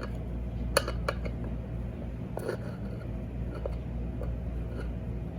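A handful of small sharp clicks and taps, a tool working around the edge of a gas regulator's cover to pry its gasket loose. A steady low hum runs underneath.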